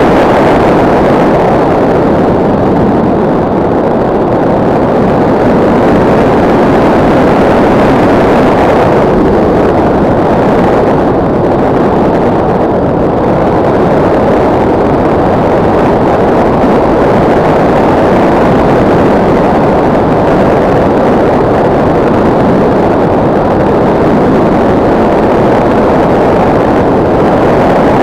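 Steady, loud in-flight noise of a SkyCruise 2400 electric RC motor glider, picked up by its onboard camera: a dense, even rush of air with no clear motor whine.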